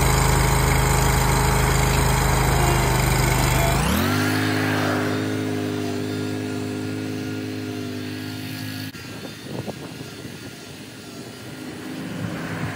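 Wright stand-on mower's engine running close by; about four seconds in it is throttled up with a quick rise in pitch, then holds a steady higher note that fades as the mower drives away. After about nine seconds the engine note drops out under faint, uneven noise.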